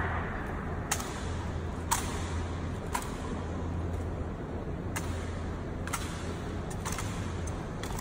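Sharp clacks from an honor guard's rifle drill, about one a second with a short pause midway, over a steady low hum.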